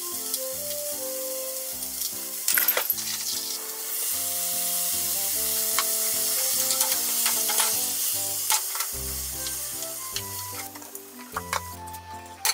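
Chicken tsukune patties sizzling in a frying pan; about four seconds in the sizzle grows louder as the soy, mirin, sake and sugar sauce goes in, then it dies down near the end as the pan is being lidded. Light background music plays throughout.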